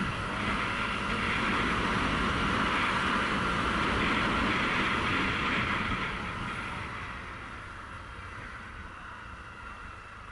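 Honda CRF250L single-cylinder four-stroke engine running under way, mixed with wind rush on a helmet camera's microphone. The sound eases and gets quieter about six seconds in.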